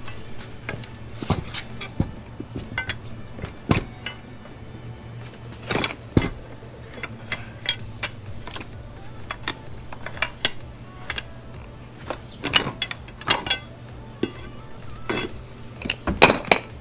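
Metal tools and parts clinking and clanking irregularly during work on a manual transmission, with scattered sharp knocks and a cluster of louder clanks near the end. A steady low hum runs underneath.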